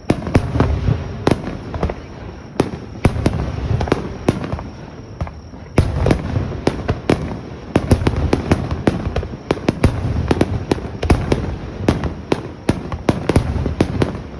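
Small home fireworks crackling: a rapid, irregular stream of sharp pops and cracks over a steady hiss, thinning out for a few seconds early on before picking up again.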